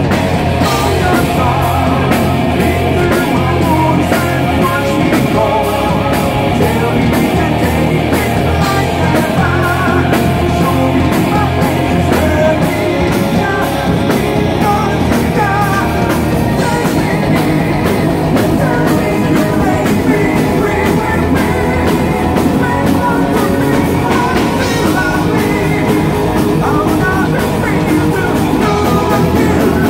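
A live power metal band playing loudly: a fast, steady drum beat, distorted electric guitars and bass, with a singer's voice over the top.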